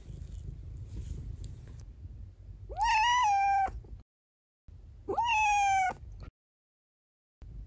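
Young Korean shorthair cat giving two high-pitched meows, each about a second long, rising at the start and then held, about two seconds apart: the cat's sleepy crying. A low rumble comes before them in the first two seconds.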